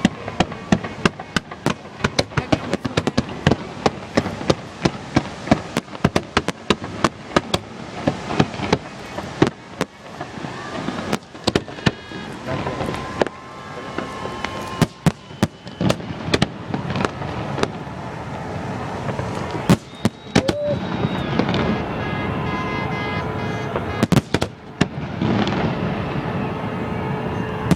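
New Year's fireworks going off close overhead: a rapid, dense run of sharp bangs and cracks, several a second. In the last part the separate bangs thin out into a continuous crackle with a few held tones over it.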